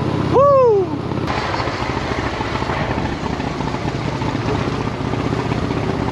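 Honda Shadow ACE 750's V-twin engine running steadily as the motorcycle rides along. About half a second in, the rider gives one short whooping shout that rises and falls.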